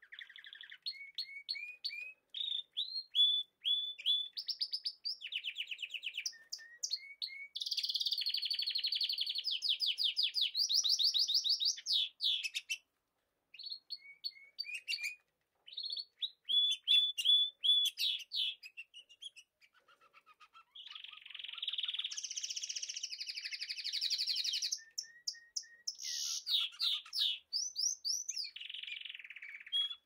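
Budgerigars singing: quick high chirps and fast chattering warbles. Two long runs of dense warbling, about a third of the way in and again in the last third, come between looser strings of single chirps and short pauses.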